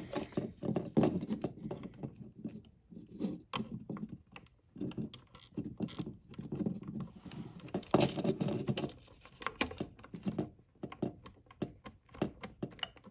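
Hands working copper wires and a smart light switch at an electrical box: irregular clicks, taps and scraping as the ground wire is fitted, with busier spells of handling about a second in and again in the middle.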